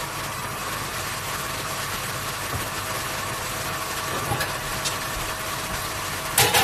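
Steady machine hum with a constant tone over a hiss. A sharp knock near the end.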